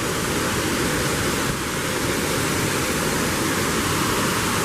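Waterfall rushing, a steady roar of falling water.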